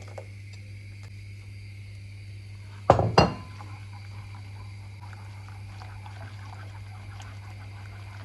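Two sharp clinks in quick succession about three seconds in, kitchenware striking a steel saucepan, then faint stirring of the custard mixture with a silicone whisk, over a steady low hum.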